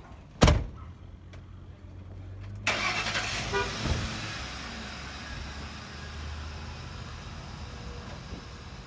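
A pickup door slams shut about half a second in. About two and a half seconds in, the truck's engine starts and then settles into a steady idle.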